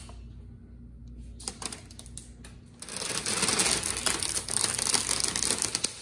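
Thin plastic screen-protection film crinkling and crackling as it comes off a TV screen and is handled. It starts with a few light clicks, then turns into a dense, rapid crackle about three seconds in.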